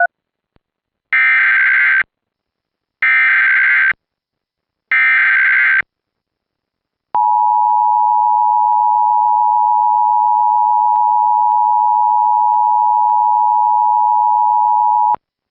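Emergency Alert System SAME header: three short bursts of screeching digital data tones about two seconds apart, encoding an Administrative Message (ADR) alert. After a brief pause comes the steady two-tone EAS attention signal, which holds for about eight seconds and cuts off.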